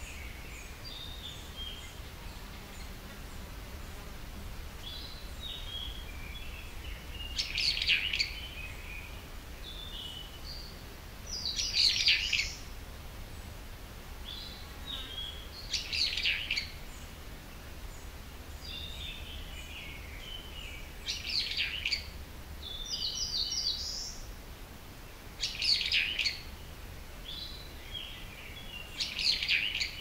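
Wild songbirds singing in woodland. One bird repeats a loud, short, busy phrase about every four seconds, and softer falling chirps fill the gaps between phrases, over a faint steady low rumble.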